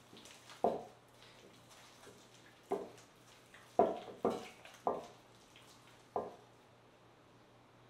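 Gloved hand squeezing and pressing wet sour cassava starch dough in a glass bowl: six short, soft wet slaps at irregular intervals while water is worked into the dough to bring it to piping consistency. A faint steady low hum runs underneath.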